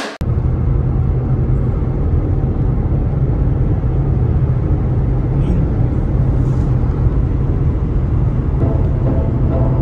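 Steady road and wind noise of a car driving at highway speed, heard from inside the car, with a strong low hum.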